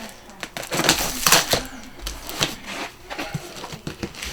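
Cardboard packaging sealed with packing tape being torn open and handled: irregular rips, crinkles and scrapes, loudest about a second in.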